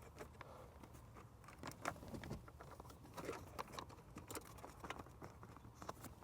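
Faint, irregular clicks and rustling of wiring and plastic being handled as a cable is bundled with wire ties.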